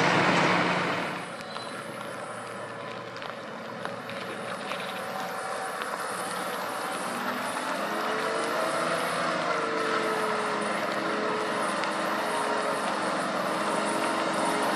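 Off-road 4x4 vehicle's engine running, its pitch rising and falling as it is revved, growing slowly louder. A louder rush of noise in the first second drops away.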